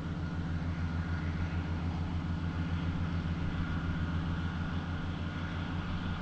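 An engine running steadily: a low, even hum with a faint high whine over it.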